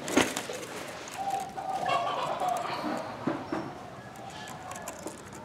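Spotted dove cooing: one long held coo from about a second in, lasting nearly two seconds. A sharp knock comes just after the start.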